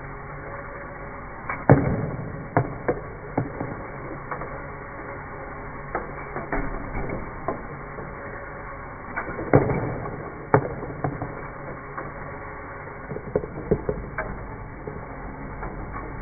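Lego Technic ball-lifting machine running: a steady hum of motor-driven gears and linkages, with irregular clacks of small plastic balls knocking against the plastic beams and forks as they are lifted and dropped. The loudest knocks come about two seconds in and again near ten seconds.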